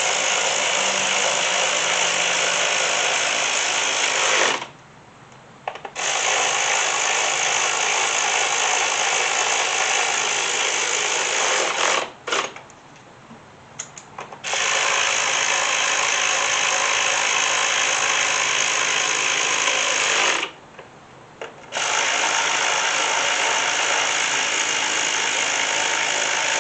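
Ratchet running down the coil pack hold-down bolts on a Ford Mustang GT's V8 engine, in four steady runs of about four to six seconds with short pauses between them as it moves from bolt to bolt.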